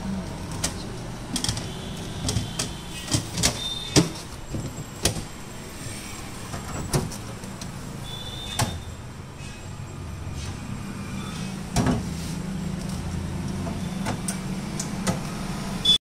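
Irregular clicks and knocks from hands handling a new Whirlpool single-door refrigerator's open door and plastic interior fittings, thickest in the first few seconds, over a steady low hum.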